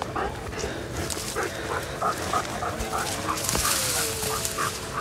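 Hunting dogs barking and yipping in a steady run of short calls, with a brief rustle of brush about three and a half seconds in.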